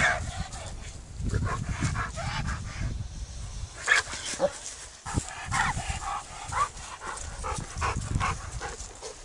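A dog barking repeatedly in short calls.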